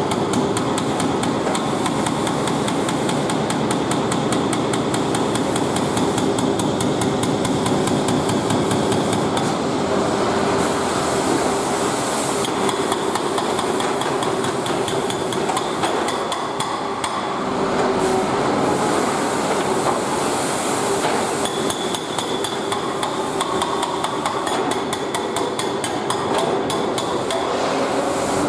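Excavator-mounted hydraulic breaker hammering in a rapid, continuous stream of blows.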